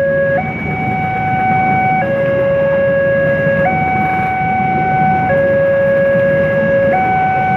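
Railway level-crossing warning alarm sounding a two-tone signal, switching between a lower and a higher tone about every second and a half. Under it is the low rumble of the Argo Wilis passenger train passing the crossing in heavy rain.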